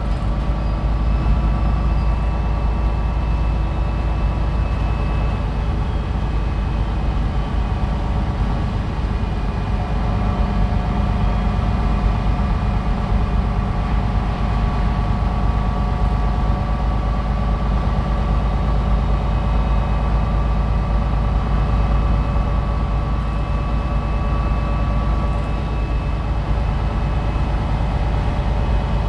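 MAN NL313 city bus's diesel engine running steadily on the move: a constant low rumble with a few steady whining tones above it.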